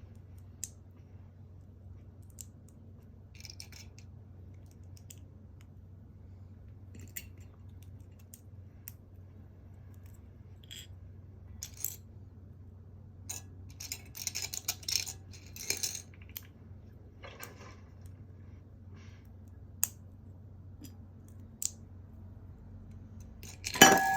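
LEGO bricks being handled: scattered sharp clicks and a short spell of rattling about halfway through, then a loud ringing clink at the very end.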